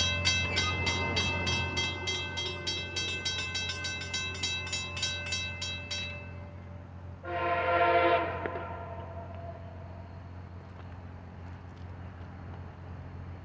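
A bell rings rapidly, about three or four strokes a second, and stops about six seconds in. A second later the approaching Norfolk Southern SD70ACC locomotive's air horn sounds one blast of about a second and a half, over a steady low rumble.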